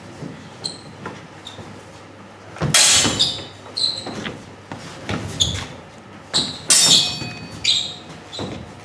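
Steel swords clashing in a fencing exchange: a quick series of sharp blade-on-blade strikes, each leaving a short metallic ring, loudest about three and seven seconds in.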